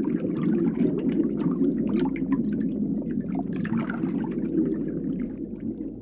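Underwater ambience: a steady, muffled low rumble of water with scattered small bubbling and crackling pops.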